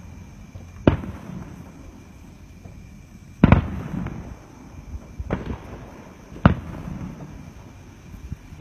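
Aerial fireworks bursting overhead: four sharp bangs one to three seconds apart, the loudest about three and a half seconds in, each trailing off in a low rumbling echo.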